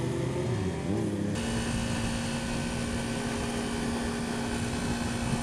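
Yamaha R15 motorcycle engine running while riding, with wind and road rush. Its pitch drops in the first second as the revs come down, then holds steady with louder wind noise.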